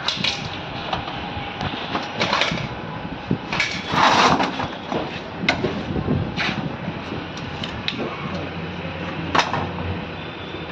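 Metal clinks, knocks and scrapes as a long screwdriver works at a Renault Triber manual gearbox casing resting in a sheet-metal tray, with a louder scraping rattle about four seconds in and a sharp clink near the end. A low steady hum comes in during the second half.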